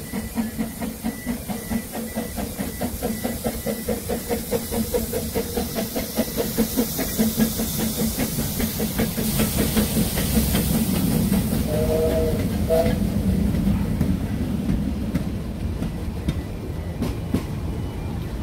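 Narrow-gauge Double Fairlie 0-4-4-0T steam locomotive and its train running through a station with a steady rhythmic beat. The sound grows louder over the first half as the engine draws alongside, then carries on as the coaches roll past.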